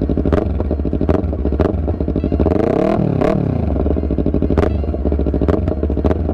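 2015 Yamaha YZF-R3's 321 cc parallel-twin engine idling through a full Akrapovic exhaust system, with one throttle blip about three seconds in that rises and falls back to idle.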